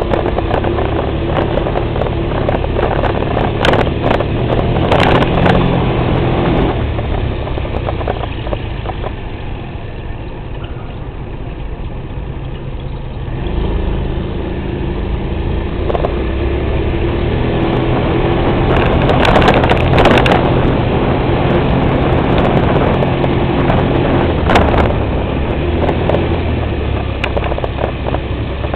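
Engine of a slowly driven vehicle running, its pitch rising and falling with speed. It drops quieter for several seconds around the middle, then picks up again as the vehicle moves off. A few short crackles come through, the strongest about two-thirds of the way in.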